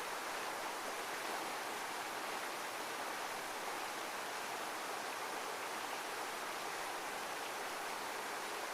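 Heavy waterfall, a steady rushing of water with an even hiss and no rise and fall.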